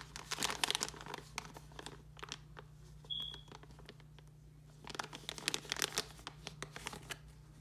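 Parts packaging crinkling and crackling as it is handled and opened, in two bouts: one at the start and one about five seconds in. A brief high squeak comes about three seconds in.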